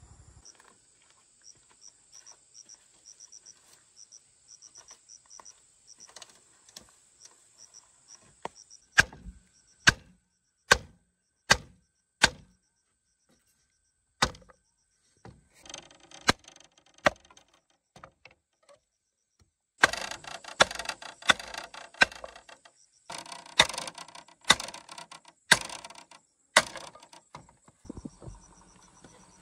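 Sharp blows of a tool on bamboo: five single strikes about a second apart, a few more spaced out, then a quicker, denser run of knocks and rattles. Crickets chirp steadily underneath.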